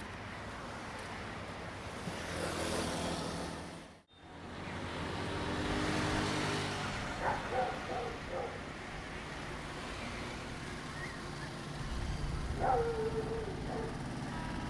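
Diesel train engine running with a steady drone, cut off by a brief silence about four seconds in, then heard running again.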